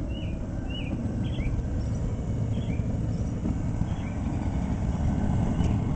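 Homemade propane forge burner running, a steady low rumble of the gas flame inside the forge body.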